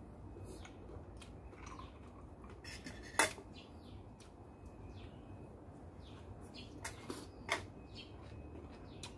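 A metal spoon and fork clinking against a plate a few times as food is scooped up, the loudest clink about three seconds in and a small cluster about seven seconds in. Small birds chirp in the background.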